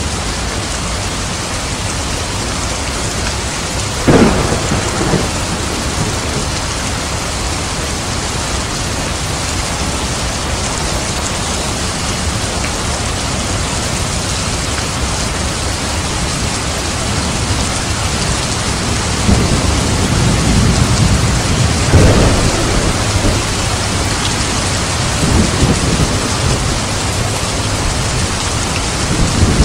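Steady heavy rain at night, with a sharp crack of thunder about four seconds in and rumbling thunder rolling through in the second half.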